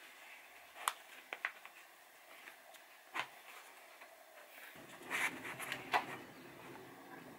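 Tearaway stabiliser paper and fabric being handled over a plastic embroidery hoop: a few light clicks and taps, then from about five seconds in a stretch of paper rustling and crinkling as the stabiliser is folded around the hoop and the fabric is pressed into it.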